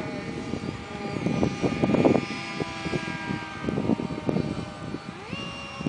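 Radio-controlled model airplane's motor whining overhead as a set of steady high tones, rising in pitch a little past five seconds in as the throttle opens. Broken rumbling noise sits under it, loudest about two seconds in.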